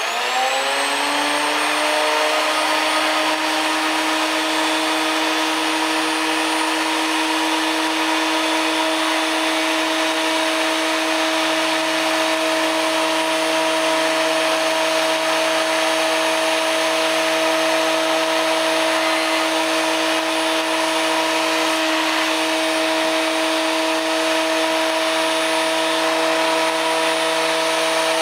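Thickness planer switched on: its motor and cutterhead wind up to speed over the first couple of seconds, rising in pitch, then run at a steady whine.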